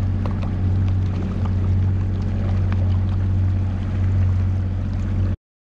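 Fishing boat's motor running steadily under way, with water and wind noise over the hull, as the boat tows a stranded bass boat. The sound cuts off abruptly near the end.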